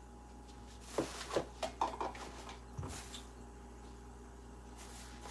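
Handling noises at a kitchen counter: a run of short clicks and rustles of plastic food containers and bags being moved, starting about a second in, then a pause and a few more near the end.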